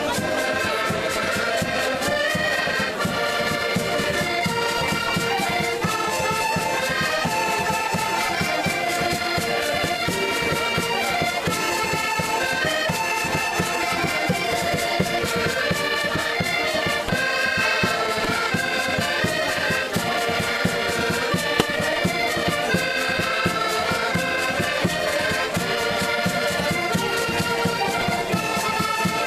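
Live Portuguese folk music: several diatonic button accordions playing a lively tune together over a steady beat.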